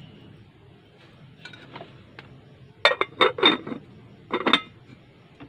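Metal lid clanking and clinking against a metal cooking pot as it is set on. A quick run of clanks comes about three seconds in, and a shorter one about a second later.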